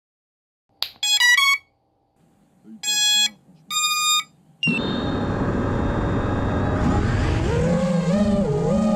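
A click, then the FPV quad's Flyduino ESCs play their startup tones through the motors: a quick rising run of beeps followed by two longer beeps. About halfway through, a loud continuous sound with high steady whines sets in.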